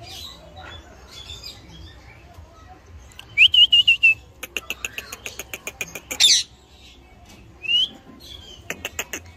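Indian ringneck parakeet calling: a short wavering whistled call, then a quick run of clicks, a loud harsh squawk and a short rising call.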